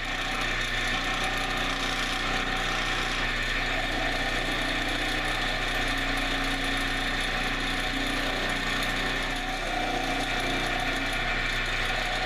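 Wood lathe running steadily while a hand-held turning tool cuts a spinning HDPE plastic blank. The motor hums under a continuous scraping hiss from the tool.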